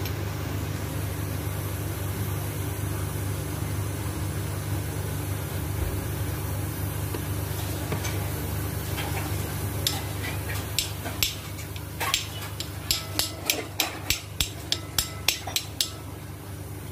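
A metal spoon taps and scrapes on a ceramic plate while spreading ketchup, in a run of quick sharp clicks about two a second through the second half. A steady low hum sits underneath.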